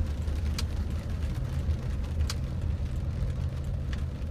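Steady low hum of engine and road noise inside a moving car, with three faint clicks evenly spaced about a second and a half apart.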